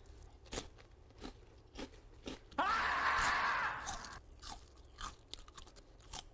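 Crunching and chewing on crisp Meoktaekkang snack sticks, about two crunches a second. A louder noisy burst of about a second and a half cuts in about two and a half seconds in.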